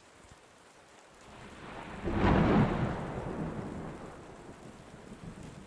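A thunderclap over steady rain: a rumble builds about a second and a half in, breaks into a loud crack at about two seconds, then rolls away over the next few seconds.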